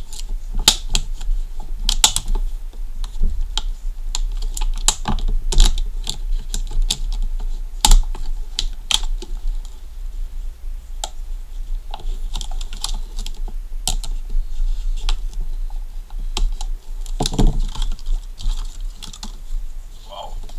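A knife cutting and prying open a hard plastic blister pack, then the plastic being bent and the headlamp pulled free: an irregular stream of sharp plastic clicks and crackles, thinning out about halfway through. A steady low hum runs underneath.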